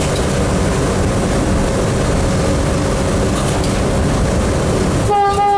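Electric locomotive running along the track, heard from inside the cab as a steady low rumble of wheels and running gear, with a short single-tone horn blast near the end.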